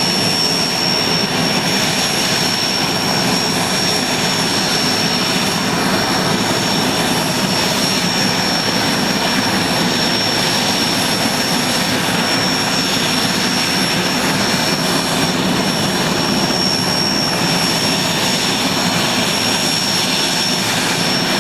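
IAR 330 Puma helicopter's twin turboshaft engines and rotor running steadily, with a constant high-pitched turbine whine over a loud, even rush of noise.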